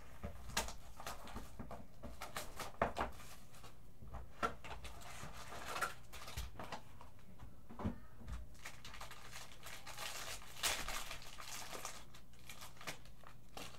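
Foil trading-card pack wrapper crinkling and being torn open, mixed with a cardboard box being handled and small knocks on the table. The rustling is loudest about eleven seconds in.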